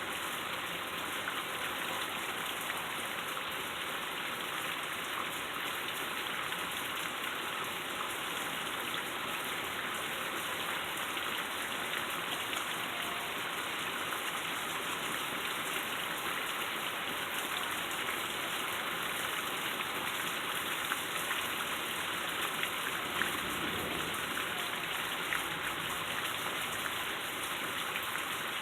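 Heavy rain falling steadily, a dense spray of small drop hits over a constant hiss.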